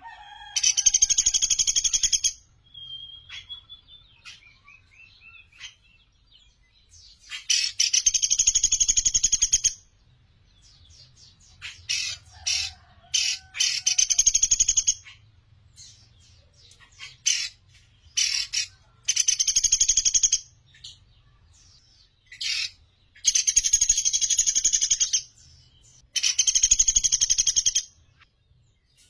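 Sunda pygmy woodpecker (pelatuk beras) calling: about six loud, high rattling trills of rapid notes, each lasting a second or two, with short sharp chips between them.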